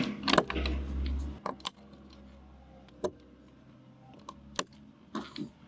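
Scattered light clicks and knocks of small hard objects being handled, with a low rumble for the first second and a half.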